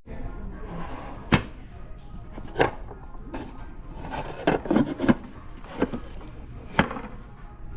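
A series of sharp, irregular knocks and clacks of hard objects being handled, with a quick cluster of them near the middle, over a steady background hum.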